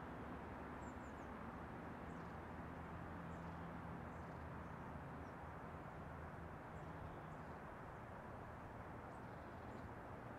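Quiet outdoor background: a faint steady low rumble with a few faint, short, high bird chirps scattered through it.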